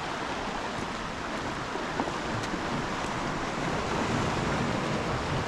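Sea surf breaking and washing on a rocky, pebbly shore: a steady rush of waves, with a couple of faint clicks about two seconds in.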